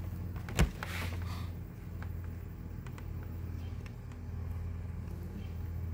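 A steady low hum of the workshop room, with quiet handling noise as a foam filter strip is pressed onto a plastic vent ring and one sharp click about half a second in.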